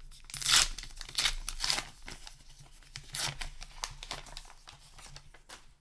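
Paper wrapper of a trading-card booster pack being torn open and crinkled: several rips and rustles, the loudest about half a second in.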